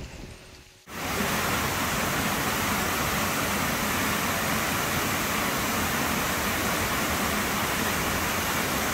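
Two-strand waterfall plunging into a rock pool: a steady, even rush of falling water that cuts in abruptly about a second in, after a brief fading lull.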